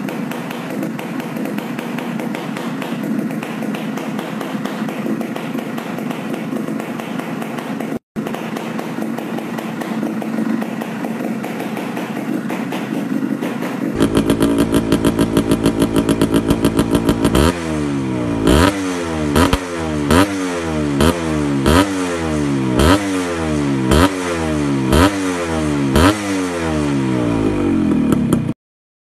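Suzuki Shaolin two-stroke motorcycle engine running steadily, then, after a cut about halfway through, blipped over and over in a series of quick revs that each climb and fall back, before it stops abruptly.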